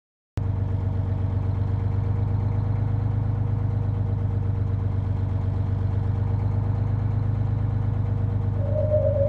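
Cartoon sound effect of a bus engine running, a steady low hum with a fast, even chug that starts suddenly just under half a second in. Near the end a steady higher tone joins it.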